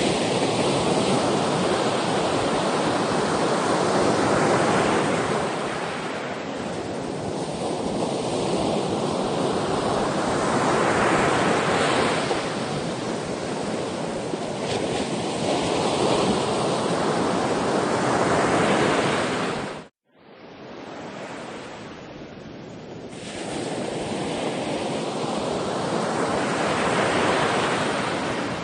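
Sea surf: waves breaking and washing ashore in slow swells every few seconds, with wind. About two-thirds of the way through, the sound cuts out for an instant and returns softer before the waves build again.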